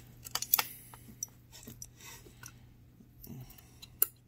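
Small plastic clicks and scrapes as a brushless computer fan's blade hub is pressed together onto its bearing by hand. A quick run of clicks comes in the first second, and one sharp click near the end as tweezers touch the hub, all over a steady low hum.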